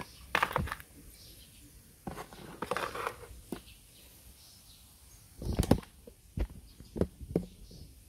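Scattered knocks and clicks of objects being handled, with a short scraping, rustling stretch about two to three seconds in and the loudest knock about five and a half seconds in.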